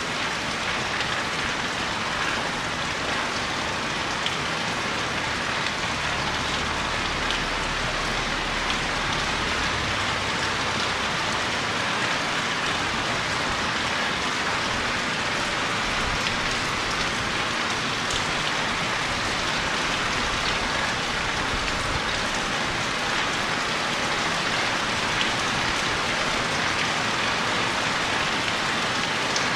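Steady rain falling and pattering on surfaces, an even hiss with scattered drop ticks and no let-up.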